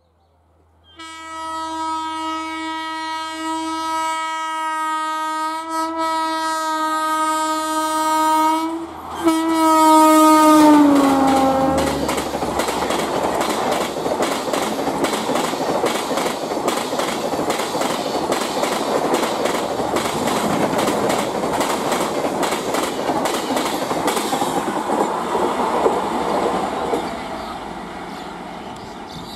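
Electric locomotive horn held long on one steady chord as a WAP-4-hauled express approaches at speed, broken briefly about nine seconds in, then sliding down in pitch as the locomotive passes. Then the coaches' wheels clatter rapidly over the rail joints for about fifteen seconds before fading away.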